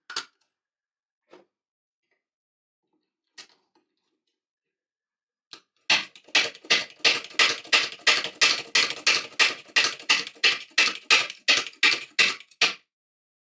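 6-ton bottle hydraulic jack, mounted upside down, pumped quickly with its handle: a fast, even run of sharp clicks, about three a second, lasting some seven seconds. A single click comes first, near the start.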